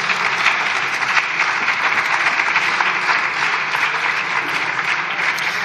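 Applause from a group of deputies on the benches: steady, dense hand clapping that eases off slightly near the end.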